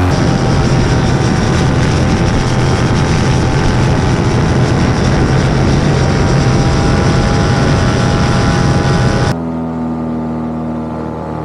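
Small aircraft motor and propeller running steadily in flight, with heavy wind noise. About nine seconds in the sound cuts abruptly to a quieter, smoother drone of steady tones.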